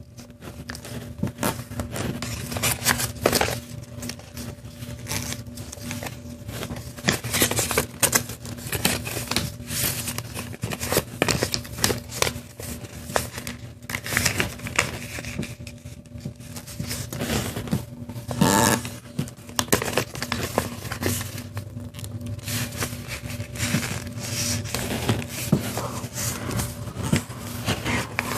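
A paper strip being folded and creased by hand: irregular rustling, scraping and crackling of paper against a tabletop as fingers press and run along the folds, over a steady low hum.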